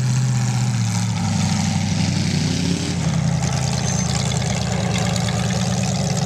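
Demolition derby car engine running loudly, revving up briefly about two seconds in, then settling back.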